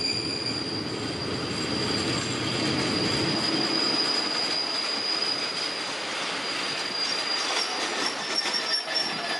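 Brakes of a slowing diesel passenger train squealing as the coaches roll into the platform, one steady high-pitched squeal held throughout over the rumble and hiss of the wheels on the rails.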